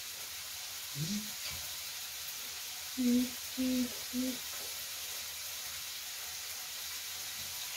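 Food sizzling steadily on a tabletop electric grill. Over it, a voice makes a short sound about a second in, then three short hums about three seconds in.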